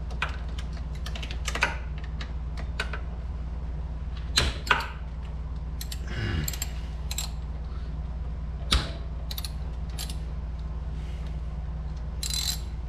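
Hand ratchet clicking in short, irregular runs as a socket and extension loosen the 12 mm front brake caliper bolts, with light taps of metal tools, over a steady low hum.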